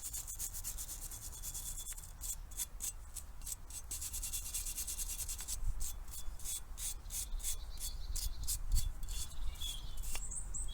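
Stiff wire brush being worked by hand over metal parts, in quick back-and-forth scrubbing strokes about two to three a second, over a low steady hum.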